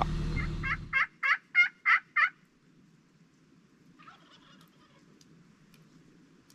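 Turkey yelping: a quick run of about six loud yelps, each dropping sharply in pitch, over about two seconds.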